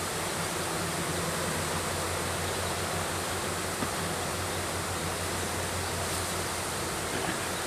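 Steady, even rushing noise, with one small knock near the middle.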